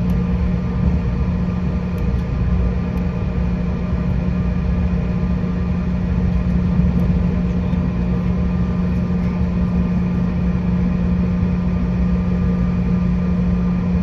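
Airliner engines and cabin noise heard from inside the passenger cabin: a steady low drone with a constant hum, unchanging throughout, as the aircraft rolls along after landing.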